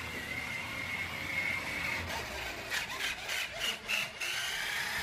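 Motorised toy dump truck's small electric motor and gears whining steadily, the pitch wavering as it drives, with a few short scraping rattles about three seconds in.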